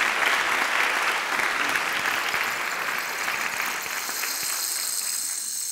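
Audience applauding, many hands clapping in a dense, even patter that slowly gets quieter toward the end.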